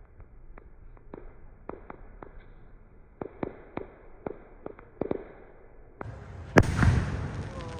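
Fireworks going off: scattered sharp pops for about five seconds, then a single much louder bang a little after six seconds, with a rumbling echo trailing after it.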